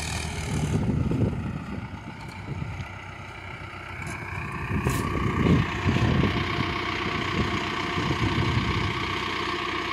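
Tractor engine running steadily, growing louder about halfway through.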